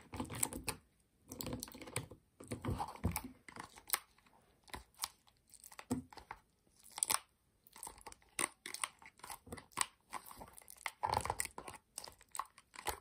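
A plastic toy dagger digging into stiff, sticky slime packed in a toy treasure box: irregular close-up squelching, crackling and tearing sounds.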